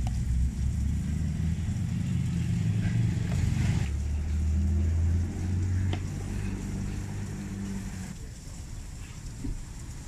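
A motor vehicle's engine running in the street, a low steady rumble that fades gradually over the last few seconds, with a few faint clicks of utensils.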